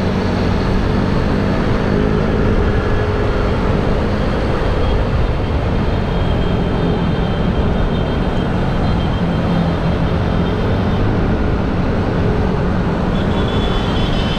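Steady noise of a motorcycle riding along: the engine's hum under constant wind rushing over the microphone.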